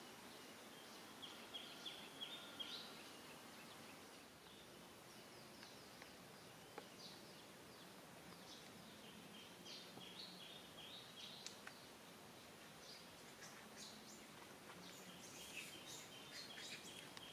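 Faint outdoor quiet with runs of short, high-pitched animal chirps, a few at a time, near the start, in the middle and again near the end.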